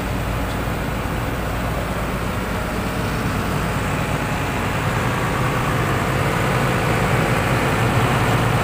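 SANY SCC550 crawler crane's diesel engine idling steadily, running on after a jump-start from a weak battery; it grows a little louder about halfway through.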